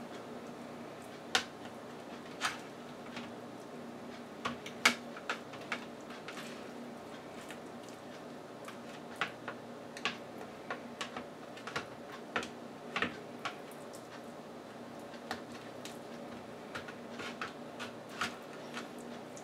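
Scattered light clicks and taps, unevenly spaced at about one or two a second, from hands rubbing garlic paste into salmon fillets on a wire-mesh air-fryer rack, over a faint steady hum.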